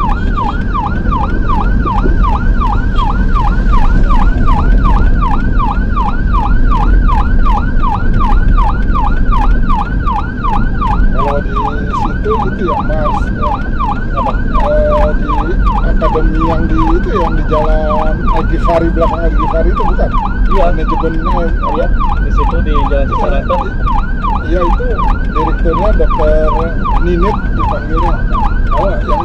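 Ambulance siren in a fast yelp, its pitch sweeping up and down about three times a second without a break, heard from inside the ambulance's cab over the steady rumble of the engine and tyres.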